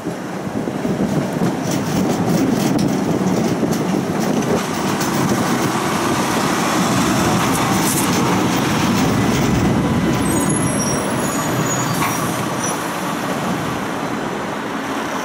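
Tram running along its rails, heard from inside at an open window with rushing noise. It slows to a halt at a stop, with a few brief high squeaks as it slows.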